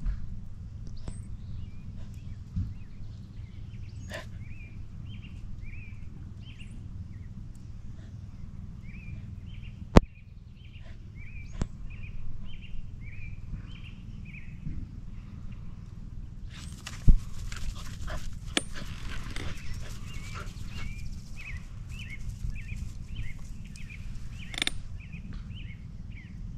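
A dog playing with its bone in the grass, making a long run of short, high whines and grunts over a steady low rumble of wind. Two sharp knocks stand out, about ten seconds in and again near seventeen seconds.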